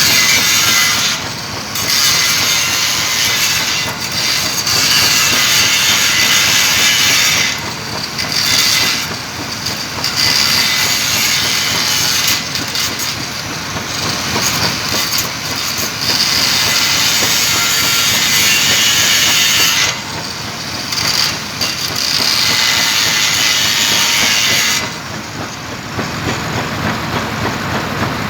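Electric welding arc crackling and hissing on stainless steel pipe, in runs of several seconds with short breaks between beads.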